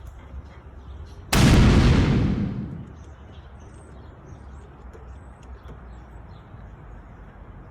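An explosion sound effect goes off suddenly about a second and a half in and dies away over a second or so, at the end of a self-destruct countdown. Low outdoor background with faint chirps follows.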